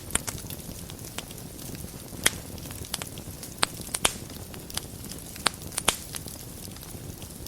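Wood fire burning in a fireplace: a steady low rush of flames with scattered crackles and sharp pops, the loudest pops coming about two, four and five and a half seconds in.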